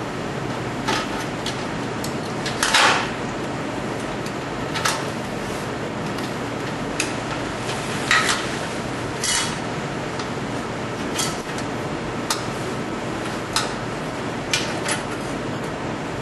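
About a dozen short metallic clinks and knocks at irregular intervals, the loudest about three seconds in, as metal parts of the stove and ammo-can heater are handled. A steady rushing noise lies under them throughout.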